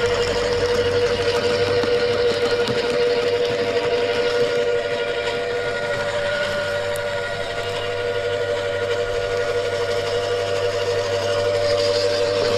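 Wood chipper running steadily, its motor giving a constant high whine over a rushing mechanical noise.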